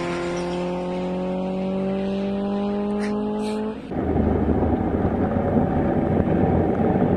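A car engine held at high revs, its steady note slowly climbing in pitch, breaks off about four seconds in. Loud rumbling road and wind noise from a car on the move takes over.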